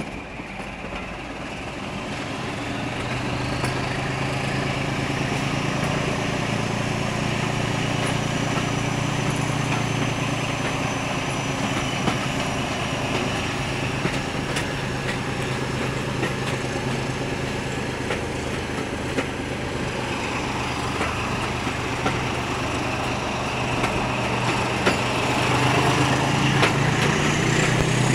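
Class 14 diesel-hydraulic locomotive D9520's engine working steadily as it hauls the train, heard from the coaches. It grows louder over the first few seconds, and a high whine rises and then slowly falls away. The engine swells again near the end.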